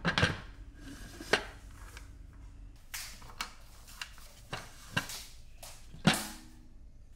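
Aluminium pressure cooker lid being seated and locked onto the pot: a series of metal clanks and clicks as the lid and handles are worked. The loudest comes about six seconds in and rings briefly.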